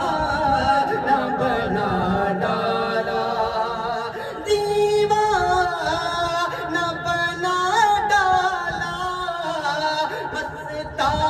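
A man's voice singing a Sufi devotional kalam in long notes that slide up and down. It grows louder and brighter about four and a half seconds in.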